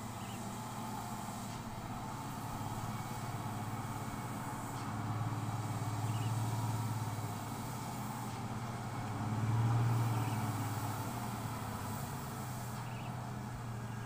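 Diesel engine of a heavy Mitsubishi Fuso logging truck laden with timber, running as it comes down a steep, rough descent. It grows louder in the middle and is loudest about ten seconds in.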